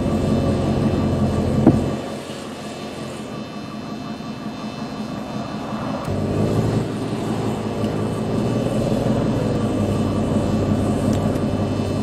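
Car engine running and revving, its pitch wavering up and down from about six seconds in, with a sharp knock just before two seconds.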